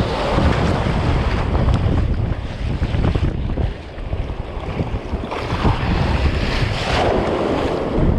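Ocean surf washing and foaming in the shallows, with wind rumbling on the microphone. The hiss of the wash swells louder for a couple of seconds about five seconds in.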